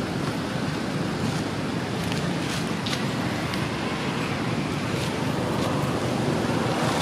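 Steady low outdoor rumble, with a few faint clicks about two to three seconds in.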